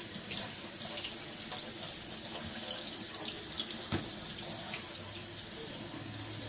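Kitchen faucet running steadily into a stainless steel sink while a plastic colander is rinsed under the stream. A single sharp knock comes about four seconds in.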